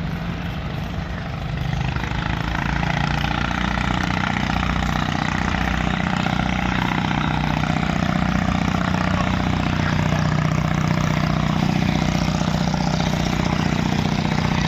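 Heavy boat engine running steadily with a low hum, growing louder about two seconds in.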